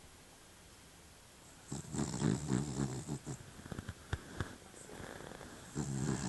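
A sleeping pet snoring: two long snores about four seconds apart, with a few short clicks between them.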